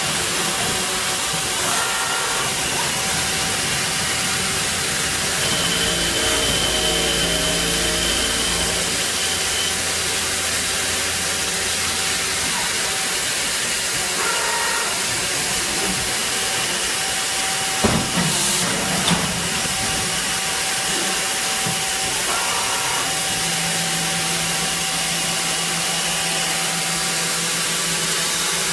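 CNC machine running under a steady hissing noise. Thin motor whines start, stop and change pitch every few seconds as the axes move, and there is a sharp click about 18 seconds in.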